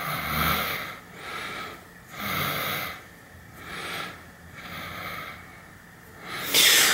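A man breathing heavily through his nose close to the microphone, in rhythmic noisy breaths about every one to two seconds, with a sharper intake near the end.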